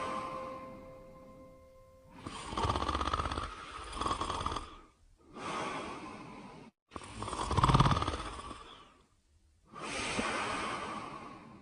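Slow, rasping snoring: four drawn-out snore breaths, each lasting one to two seconds with short silences between, the loudest near the middle. A bell-like note of a lullaby tune rings out and fades over the first two seconds.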